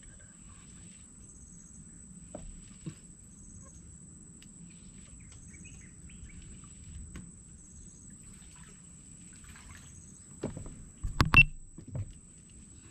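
Insects calling: a steady high-pitched trill with short cricket chirps repeating about every second and a half. Near the end comes a brief cluster of sharp knocks and thumps, the loudest sound here.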